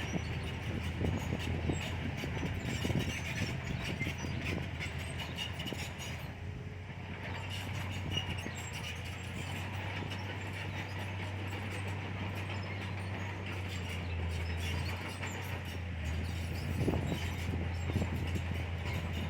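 Diesel engine of a Komatsu bulldozer running steadily while pushing soil, with scattered clanks from its steel tracks and blade.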